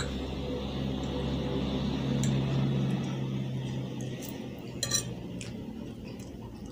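Metal forks clinking and scraping on plates of baked macaroni during eating, a few sharp clinks standing out, the loudest cluster about five seconds in, over a steady low hum.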